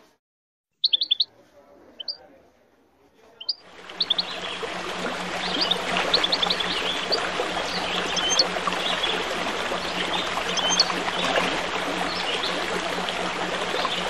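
Small songbirds chirping in short high bursts. About four seconds in, a steady rush of babbling water comes in beneath them and continues while the chirps go on.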